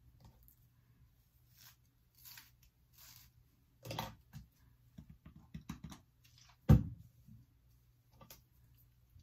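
Hands and a comb rustling and scraping through the hair of a body-wave lace frontal wig, in short brushing strokes with scattered light clicks. One sharp thump a little before seven seconds in is the loudest sound.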